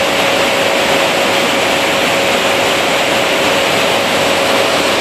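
Military transport aircraft in flight, heard from inside the cargo hold: loud, steady engine and airflow noise with a constant hum.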